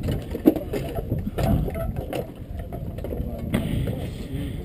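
Footsteps and knocks on a metal boarding ladder as someone climbs aboard, the sharpest about half a second in, over a low rumble and faint voices.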